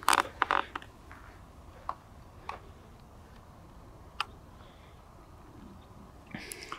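A series of sharp clicks and taps: a quick cluster in the first second, single clicks at intervals after, and a short cluster near the end.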